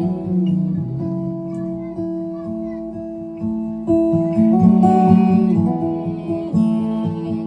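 Acoustic guitar strumming chords in a steady rhythm, an instrumental break between sung verses of a folk song.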